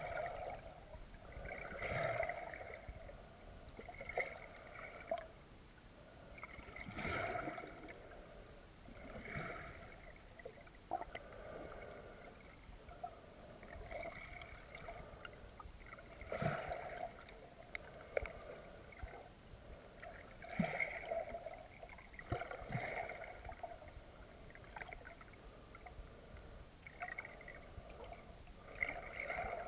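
Muffled underwater sound of river water moving past a camera's waterproof housing, swelling and fading irregularly every second or two, with a few light knocks.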